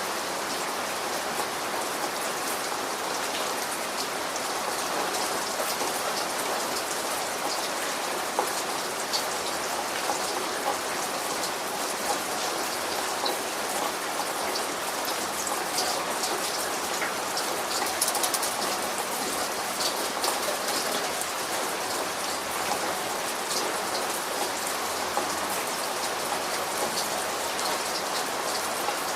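Steady rain falling and pattering on a surface, with scattered individual drops ticking sharply over the even hiss.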